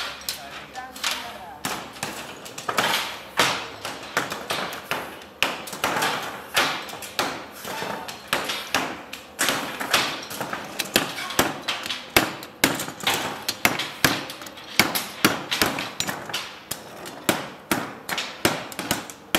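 Metal brake shoes and their springs knocking and clattering against wooden workbenches: a steady run of sharp, irregular knocks, several a second.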